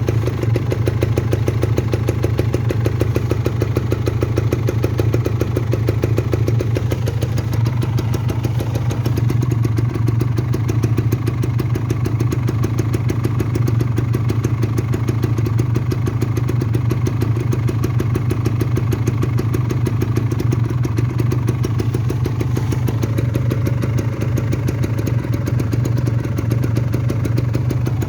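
Kawasaki Ninja RR 150's two-stroke single-cylinder engine idling steadily, a fast even run of firing pulses with no revving.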